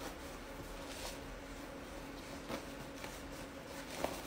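Quiet room tone: a faint steady hum with a few soft, short clicks, about a second in, midway and near the end.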